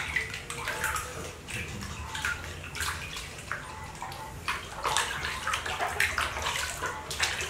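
Water splashing and sloshing in a plastic basin as a baby monkey is washed by hand, in irregular bursts that grow busier about four and a half seconds in as the monkey thrashes.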